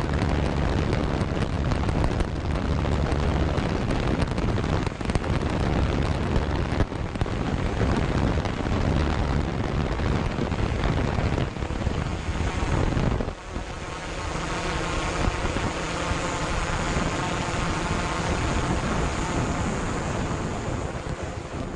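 Dense rumble and crackle of fireworks bursting close around the drone, with wind noise on its microphone. About thirteen seconds in, the low rumble drops away and the steady hum of the drone's propellers, wavering slightly in pitch, takes over.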